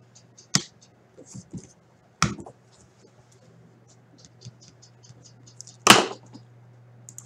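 Trading cards being handled and set down by hand: three sharp clicks, the loudest about six seconds in, among light ticking and shuffling, over a faint steady low hum.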